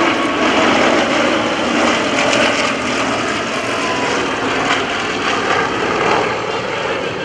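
Radial piston engines of a four-ship formation of Yak-52 and Nanchang CJ-6 propeller aircraft flying past together, a steady loud drone that eases slightly near the end.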